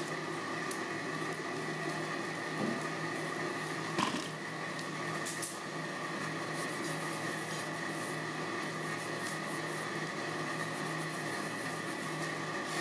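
Steady mechanical hum of a running fan or motor, with a high whine in it. There is one short knock about four seconds in.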